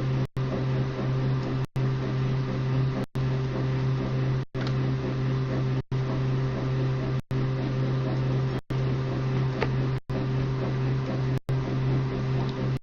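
A steady machine hum with a strong low drone and a few steady higher tones, broken by short gaps of silence at even intervals, about every one and a half seconds.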